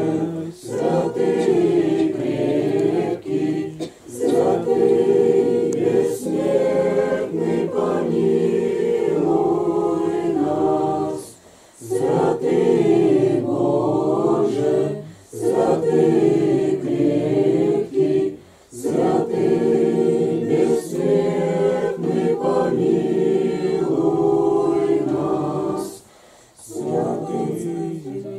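Orthodox church choir singing a liturgical chant a cappella, in long phrases broken by several short pauses.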